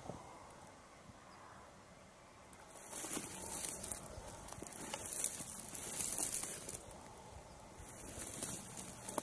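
Dry grass and weeds rustling and crackling as something moves through them, in two spells of scratchy hiss after a quiet start.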